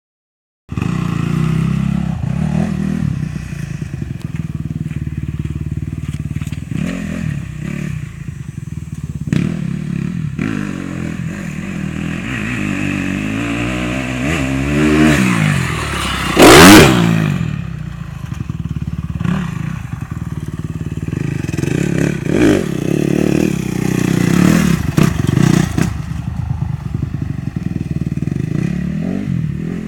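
Dirt bike engine running and revving, its pitch rising for a few seconds in the middle and peaking in one loud, brief burst of noise more than halfway through, then running on with lighter revs.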